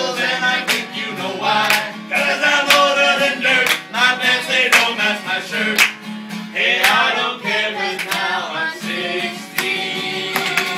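Men singing a song to a strummed acoustic guitar, with steady strums under the sung melody.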